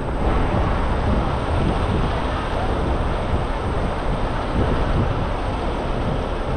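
Steady city street noise: a continuous rumble of traffic with a murmur of people around.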